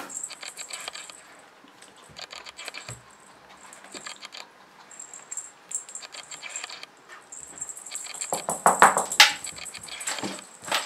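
Bengal kitten wrestling a feather toy on carpet: scratchy rustling of feathers and claws with irregular small clicks, and a louder scuffle about eight to nine seconds in.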